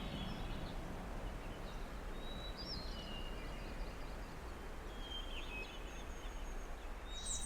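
Outdoor ambience: a steady background hiss with faint, brief bird chirps now and then.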